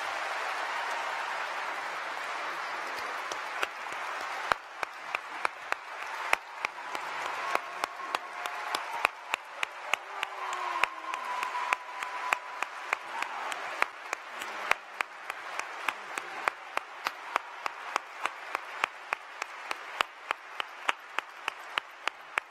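Large audience applauding. After a few seconds the scattered applause settles into rhythmic clapping in unison, about two and a half claps a second.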